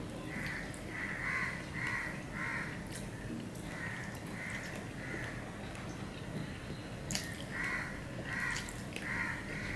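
A bird calling in runs of three or four short, evenly spaced calls: one run at the start, another about four seconds in, and a third near the end.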